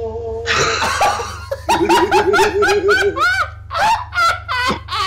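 A held sung note breaks off about half a second in, and people burst out laughing. A breathy outburst comes first, then quick, rhythmic 'ha-ha' laughter from at least two voices.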